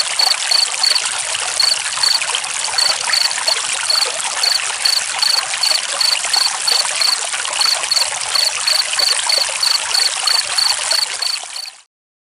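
Running water, a steady stream sound, with a cricket chirping about three times a second over it, pausing now and then. Both stop abruptly near the end.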